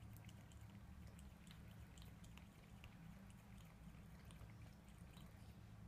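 Faint, irregular small wet clicks of a cat licking at the tap, over a low steady hum.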